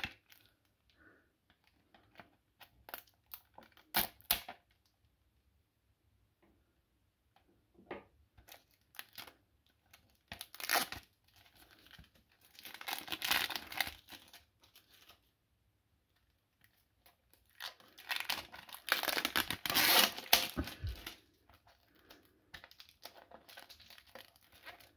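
Plastic shrink-wrap being torn and crinkled off a CD box set, in irregular bursts of crackling rustle with short pauses; the longest and loudest stretch comes in the last third.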